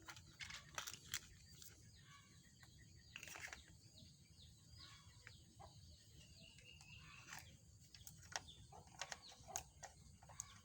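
Near silence with faint, scattered clicks of plastic toy train track pieces and blocks being handled and fitted together, and birds chirping faintly in the background.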